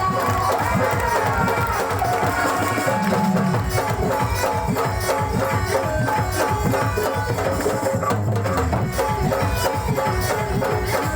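Loud music with a fast, dense drum rhythm under a melody line.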